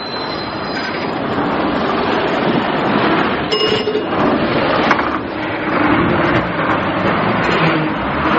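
Sound effect of a bus driving: a steady, dense running noise with a few light knocks and rattles.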